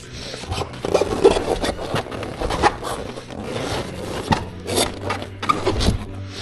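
Hands working a rubber inner tube into a Shinko tire on a Surron's front rim, making irregular rubbing and scraping of rubber on rubber and metal, with a few sharp knocks.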